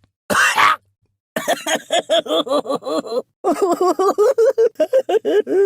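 A cartoon character's voice effect: a short hissing burst, then two runs of fast repeated syllables, about eight a second, like rapid chattering laughter.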